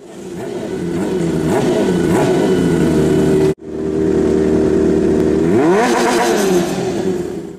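Motorcycle engine running at high revs. It cuts off abruptly about halfway through and comes back, then rises in pitch in a quick rev later on.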